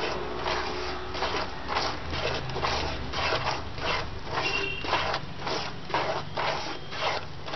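Plastic slotted spatula scraping rhythmically through gram flour roasting in ghee in a nonstick kadhai, about two strokes a second. It is being stirred continuously so the besan does not stick.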